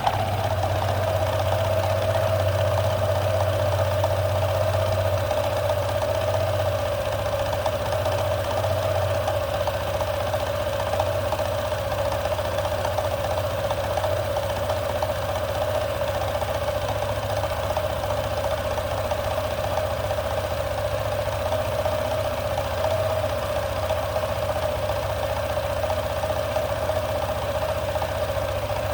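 Honda PCX125 scooter's single-cylinder four-stroke engine starts right at the beginning and then idles steadily, with an even low hum and a constant whine over it. This is the test run after its CVT drivetrain was reassembled with a new belt, weight rollers, slide pieces and driven face spring.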